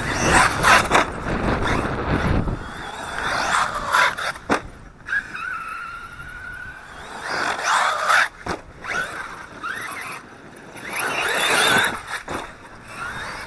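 Redcat BE6S electric RC monster truck driven in bursts: its brushless motor whines up and down in pitch several times, with tyres scraping on dirt and a couple of sharp knocks. Wind buffets the microphone in the first couple of seconds.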